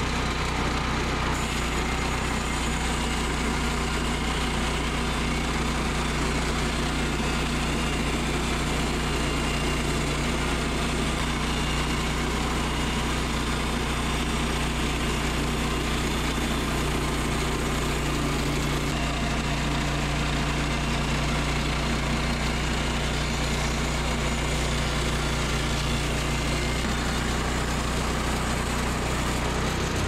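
Woodland Mills portable bandsaw sawmill running steadily under power, its freshly replaced band blade cutting a one-inch board from a log. The new blade is cutting straight, curing the wavy cuts of the old one.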